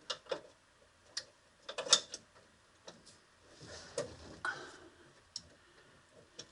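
Scattered light metallic clicks and taps from hand tools and parts, with a louder cluster about two seconds in and a short rustling, scraping stretch around four seconds, as a steering column is worked into place and fastened.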